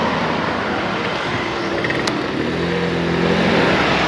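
Street traffic heard while riding, a steady rushing noise, with a motor vehicle's engine joining in about two and a half seconds in as a steady pitched hum.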